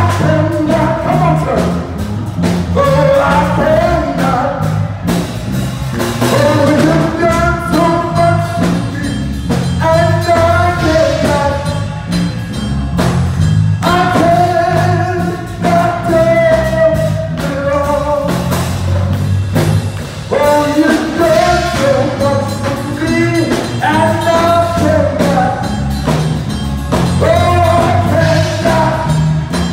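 Live gospel praise song: a singer holds long sung notes and runs over a band with a steady beat and bass line.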